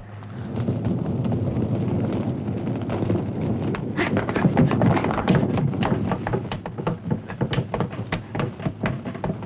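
Action-film soundtrack: a steady low hum under a dense run of clicks and knocks, growing busier about four seconds in.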